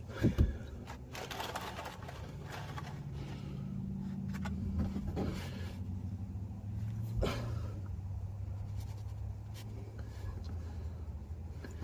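Wrench knocking and clicking on an oil drain plug as it is worked loose: two sharp knocks just after the start, the loudest sounds, then scattered clicks over a low steady hum.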